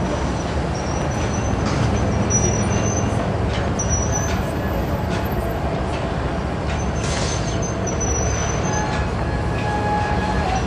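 Rail yard noise: a steady low rumble with several high-pitched squeals that come and go, typical of freight car wheels on the steel rails of a hump classification yard, and a few faint clanks.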